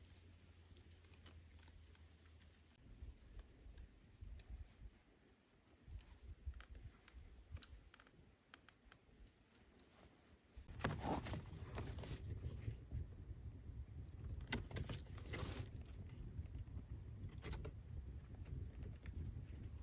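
Faint clicks, taps and rustles of a thin, flexible vine strand being handled and bent into a hoop against a wall of sticks. About 11 seconds in, a low rumble comes in and the taps grow louder.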